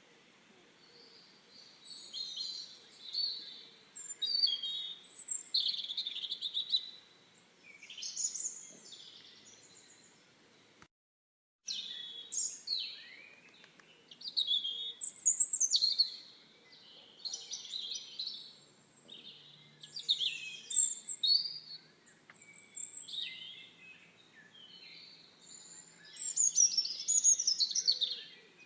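Wild birds singing and calling: a string of short, varied chirps and whistling phrases, one after another, with the sound cutting out completely for a moment about eleven seconds in.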